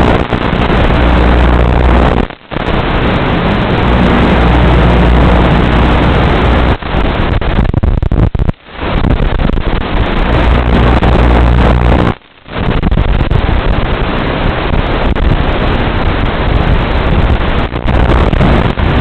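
Electric model aircraft's motor and propeller running with wind rushing over the onboard microphone, a loud steady noise with a low hum under it. The sound drops out briefly three times, at about two and a half, eight and a half and twelve seconds in.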